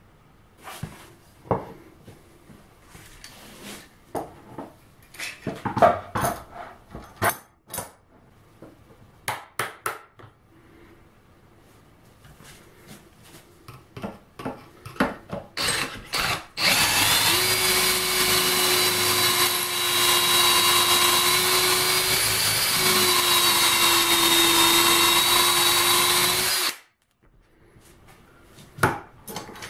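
Clicks and knocks of a metal pocket-hole jig and clamp being handled, then a cordless drill runs steadily for about ten seconds, boring a pocket hole into a wooden board with a stepped drill bit through the jig. It stops abruptly near the end, followed by more clicks as the clamp is released.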